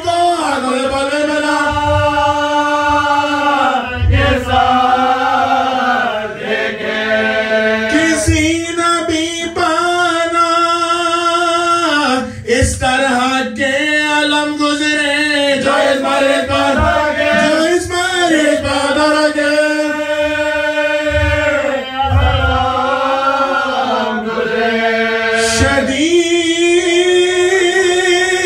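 A man's solo voice chanting a Shia mourning lament (marsiya) in Urdu into a microphone, holding long notes that slide up and down between short breaths.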